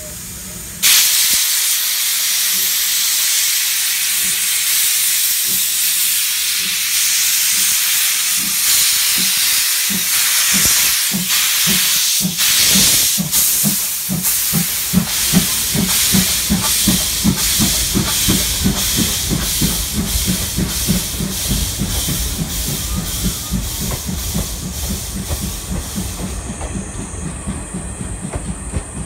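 C11-class steam tank locomotive pulling away from a station: loud hissing steam with exhaust chuffs that come faster and faster as it gathers speed, then its passenger coaches rolling past with a steady rhythmic wheel clatter.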